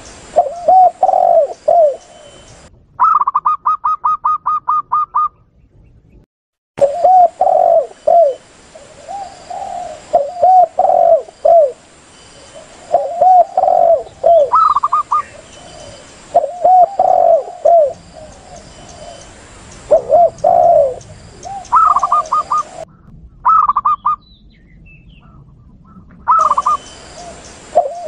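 Spotted doves (tekukur) cooing in repeated low phrases, with zebra doves (perkutut) giving rapid runs of higher staccato coo notes three times. The recording is spliced together, with abrupt cuts and a brief silence about six seconds in.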